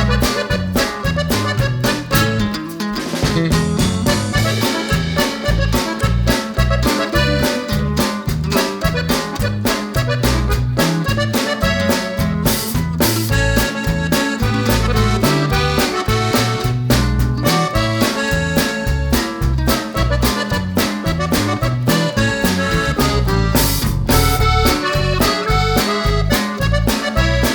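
Background music with a steady beat, led by an accordion-like melody.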